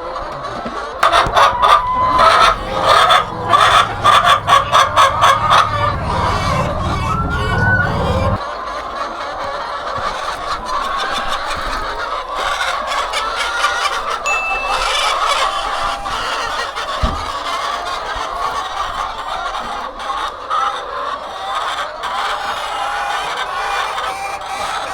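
Many hens clucking, with short calls overlapping throughout. In the first quarter there is a quick run of sharp clicks or knocks, over a low rumble that cuts off suddenly about a third of the way in.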